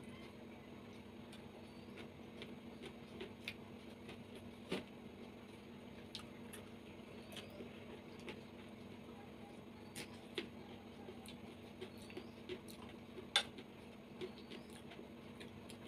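Close-up eating sounds from someone eating soft boiled vegetables and rice by hand: scattered small mouth clicks and smacks of chewing and of fingers in the food, a few of them louder, over a steady low hum.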